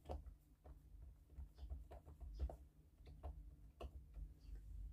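Faint, scattered small taps and clicks of hands pressing crumbly filling into a silicone mould and handling the tray, over a low steady hum.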